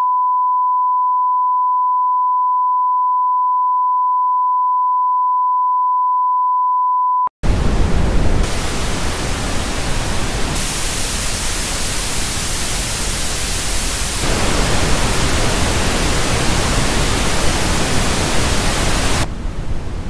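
A steady 1 kHz line-up tone, the beep that goes with TV colour bars, cuts off abruptly about seven seconds in. After a short break, loud TV static takes over: the hiss of a set with no signal, growing brighter and duller a few times.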